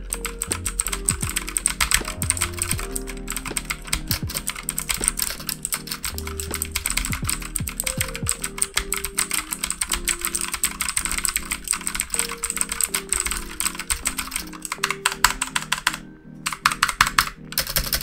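Fast typing on an Onn mechanical RGB gaming keyboard with clicky Outemu Blue switches: a dense stream of sharp key clicks that pauses briefly near the end and then resumes. The keyboard's skirtless frame makes the keys sound kind of hollow. A lo-fi music track plays underneath.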